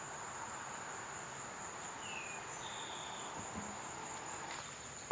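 Crickets trilling steadily at a high pitch, faint, over a light background hiss, with a brief falling chirp about two seconds in.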